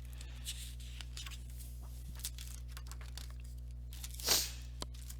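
Steady low hum with faint small clicks of handling, and a short paper rustle about four seconds in as a picture-book page is turned.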